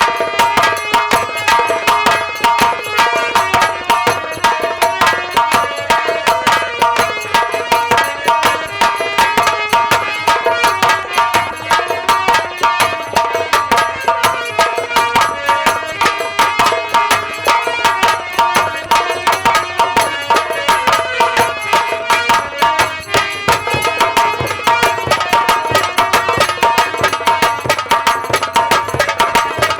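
Live instrumental music of a nautanki folk-theatre troupe: a fast, steady hand-drum rhythm under sustained melodic notes, with no singing.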